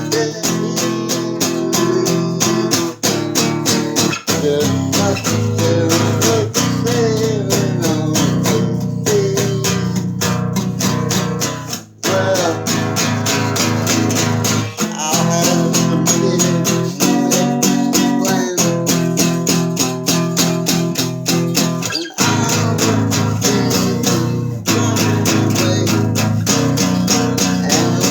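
Guitar playing a song, its strings picked in a quick, even rhythm with a melody moving above, and a brief break about twelve seconds in.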